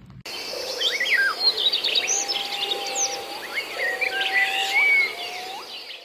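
Several birds chirping and whistling over a steady high insect buzz, starting abruptly just after the start. Three long, low whistles each rise sharply at the end.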